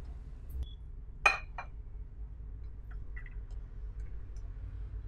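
A spatula clinking against a nonstick pan and a glass bowl as cooked sprout mixture is tipped out and pushed from the pan: a sharp clink about a second in, a second one just after, then a few light taps.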